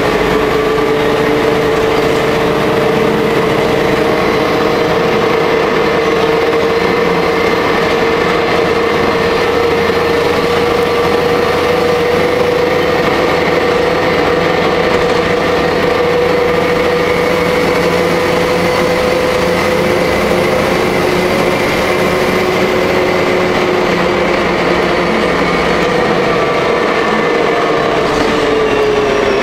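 Interior of a Jelcz L100 city bus under way: steady engine and drivetrain noise. A high whine rises slowly in pitch and then falls near the end.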